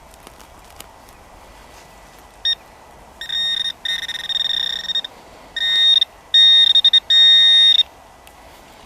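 Metal detector sounding its target tone over buried metal: a string of electronic beeps at one steady pitch, a short one first, then longer ones that grow louder toward the end.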